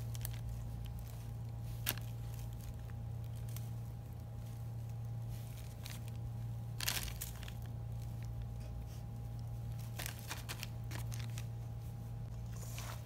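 Metal spoon scooping flour from a plastic bag, the bag crinkling, with a few sharp clicks about 2, 7 and 10 seconds in. A steady low hum runs underneath.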